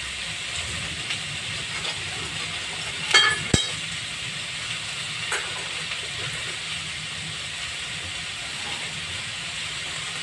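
Vegetables sizzling in a wok with a steady frying hiss, broken a little after three seconds in by two quick metallic clinks and a fainter one a couple of seconds later.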